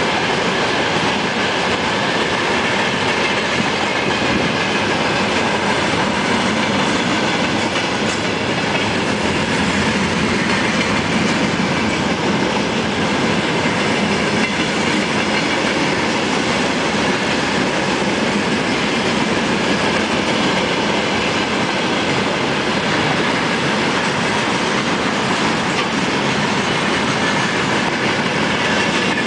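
Long freight train of tank cars and covered wagons rolling past close by: the steady noise of the wagons' wheels running on the rails, loud and even.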